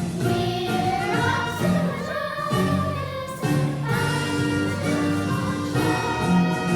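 A youth chorus singing held notes of a musical number over orchestral accompaniment.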